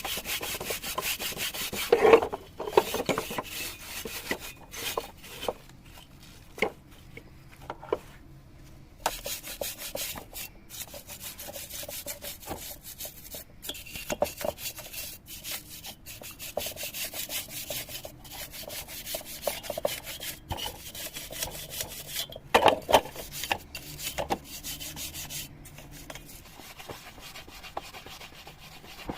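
Chainsaw part being rubbed down by hand with an abrasive or scrubbing tool: fast runs of short rubbing strokes with brief pauses, heaviest about two seconds in and again near the end.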